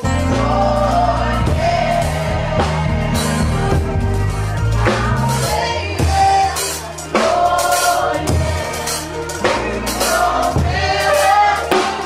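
Gospel worship music: singing over a drum kit and bass.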